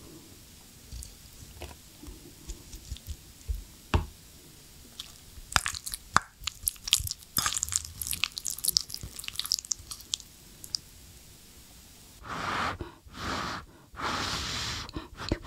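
Close-miked eating sounds: soft chewing of braised beef rib, then a quick run of clicks and scrapes as chopsticks stir rice and broth in a stainless steel rice bowl. Near the end come three loud breathy bursts of about a second each as a spoonful of the soaked rice is brought to the mouth.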